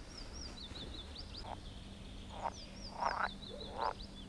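Frogs croaking at a pond, about four short croaks in the second half, over a repeating high chirping sequence.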